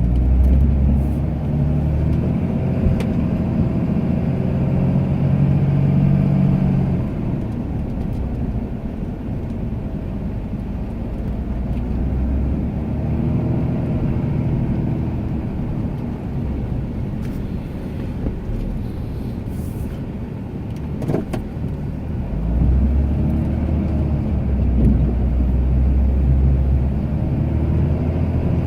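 Ram 2500 pickup's engine working while plowing snow, pulling harder three times and easing off in between.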